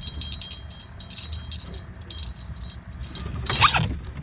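Fishing reel's drag clicking in irregular spurts as a hooked flathead catfish pulls line against it, with a louder, rougher burst about three and a half seconds in.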